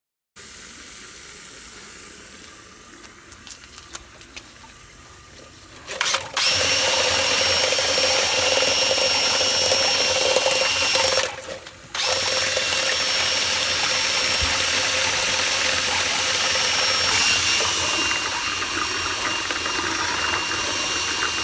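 A few quiet clicks and handling noises, then a power tool's electric motor starts about six seconds in and runs steadily with a high whine. It stops for about a second near the middle and starts again.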